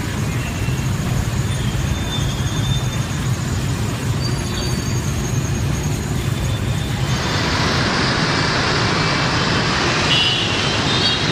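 Traffic noise from a dense jam of motorbikes and cars: a steady low rumble of engines. About seven seconds in it changes to a brighter, hissier traffic din, with a few faint high tones near the end.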